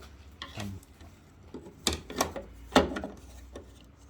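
Handling noise from trim parts being worked on: a few sharp clicks and knocks, three of them close together about two to three seconds in, with light rubbing between.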